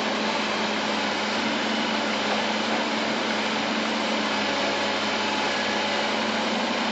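Bulldozer's diesel engine running steadily with an even, unchanging drone.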